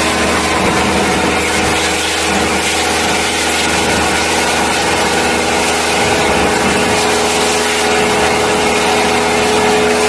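A small motor running steadily, with a constant hum and whine over a hiss.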